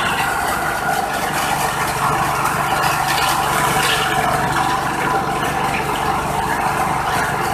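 Stainless steel disk mill running, grinding grain into flour, with a loud, even, unbroken mechanical noise and a steady tone over it.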